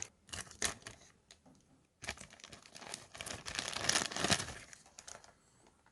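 Plastic toy packaging being torn open and crinkled by hand: scattered crackles at first, then a denser run of crinkling and tearing, dying away near the end.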